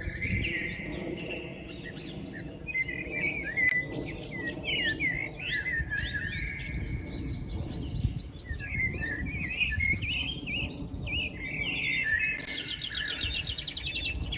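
Several songbirds chirping and singing at once, short overlapping calls and whistles with a rapid trill near the end, over a steady low background rumble.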